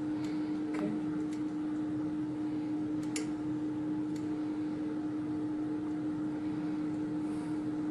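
Steady machine hum of the bending-test loading rig, with a few faint, sharp ticks from the cracked carbon-textile-reinforced geopolymer panel as it takes load.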